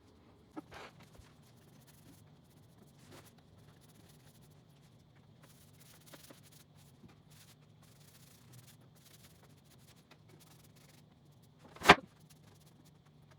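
A faint low hum with a few soft clicks, then one short, sharp knock near the end.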